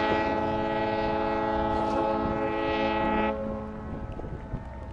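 A long, steady horn blast that stops abruptly about three seconds in, leaving faint background noise.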